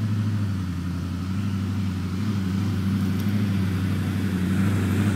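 Lifted Jeep CJ engine running at low, fairly steady revs with small rises and falls in pitch as the Jeep climbs a muddy trail.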